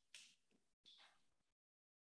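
Near silence: room tone, with two faint brief hisses near the start and about a second in.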